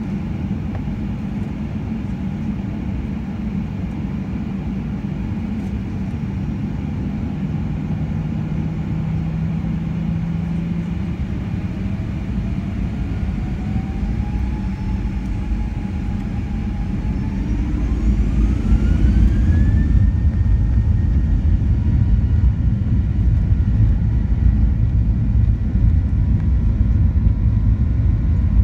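Boeing 737-800's CFM56-7B turbofan engines heard from inside the cabin: a steady low rumble, then, about halfway through, a whine rising in pitch as the engines spool up to takeoff thrust. The rising whine then holds at a high steady pitch while the rumble grows louder as the takeoff roll begins.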